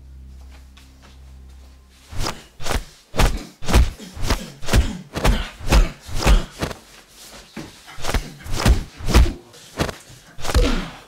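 A scuffle between two people: a rapid run of heavy thuds and thumps from bodies and feet, about two a second, starting about two seconds in after a low steady hum.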